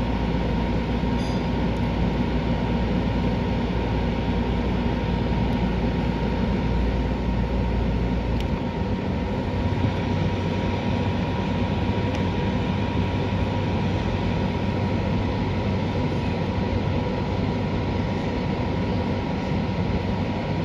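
Steady rushing noise of a thunderstorm, with a low rumble that drops away sharply about eight seconds in and a faint steady high tone throughout.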